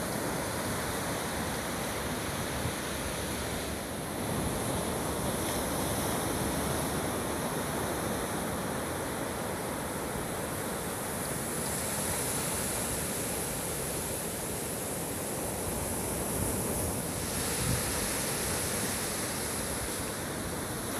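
Steady beach ambience: surf washing continuously, with wind on the microphone.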